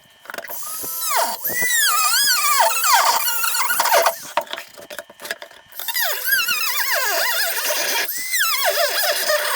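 Power tool squealing as it cuts into wood, its high pitch swooping up and down under load, in two long stretches with a short break about four seconds in.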